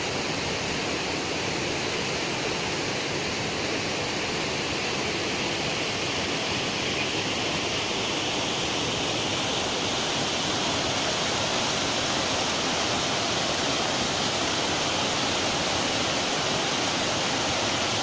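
Waterfall cascading over rock ledges and boulders: a steady, even rush of falling water.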